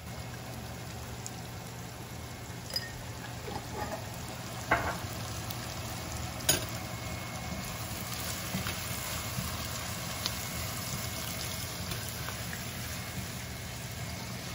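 Onions sizzling in hot oil in a nonstick pot over raised heat, frying until they turn reddish-brown. They are stirred now and then, with a few sharp knocks of the spatula against the pot.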